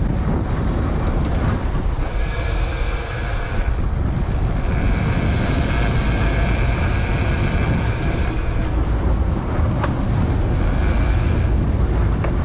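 Sport-fishing boat's engines running with wind buffeting the microphone, and a high steady whine that comes and goes, twice for a few seconds and once briefly near the end.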